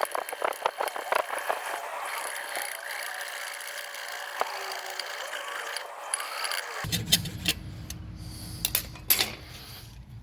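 A toilet's plastic fill valve being cut through between its two nuts. It opens with a quick run of clicks, then a steady cutting noise. About two-thirds of the way through a low rumble comes in, with a few sharp clicks.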